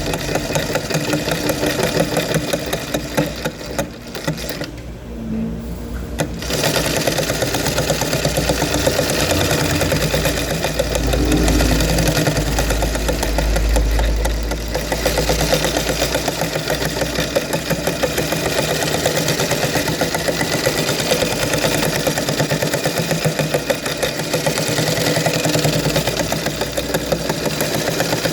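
Electric sewing machine running with rapid, even needle strokes. It eases off briefly about four to six seconds in, then runs on steadily.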